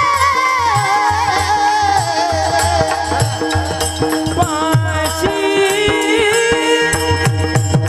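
Devotional kirtan music: a singer holds a long, wavering note that slides slowly downward over a steady drone, with mridang strokes and jingling small cymbals (taal) keeping the rhythm.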